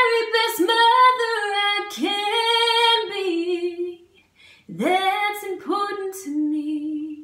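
A woman singing a cappella, with no instrument: two slow sung phrases with a short pause between them, the second ending on a long held note.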